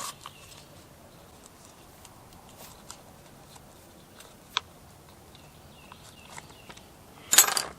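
Light clicks and handling noises as a chainsaw's recoil starter pulley is turned by hand to wind its new rope and tension the recoil spring, with one sharp click about four and a half seconds in and a loud short scrape near the end.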